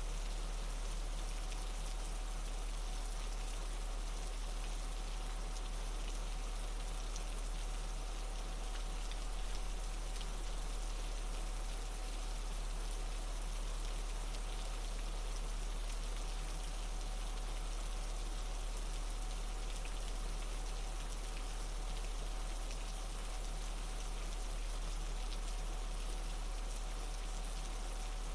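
Steady background recording of falling water, an even hiss that holds unchanged throughout, over a strong steady low tone (the alpha-wave tone laid under the track) and a faint high thin tone.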